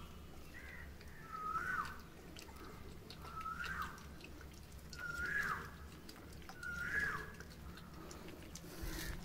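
Young puppy whining repeatedly as it crowds in for the milk bottle: short high whines, each rising and then dropping, about one every two seconds.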